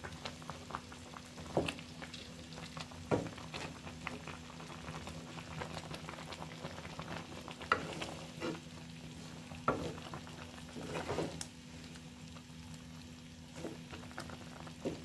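Wooden spatula stirring and scraping chicken pieces through a thick yogurt gravy in a metal karahi, with a low sizzle as the masala cooks down over low heat. The scrapes come irregularly, every second or two.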